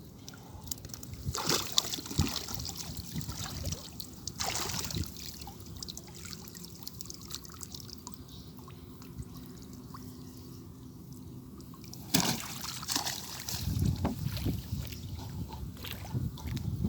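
Shallow water being stirred, trickling and sloshing, with louder splashes about a second and a half in, at four and a half seconds, and again from twelve seconds on.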